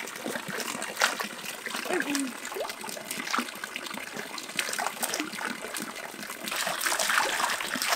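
Water splashing and trickling as a fishing net is drawn through a shallow pond, with faint voices; the splashing grows denser near the end.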